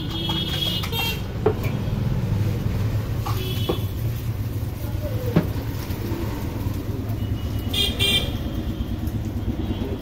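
Street traffic running steadily, with vehicle horns tooting three times, the last near the end. A couple of sharp clicks stand out in between.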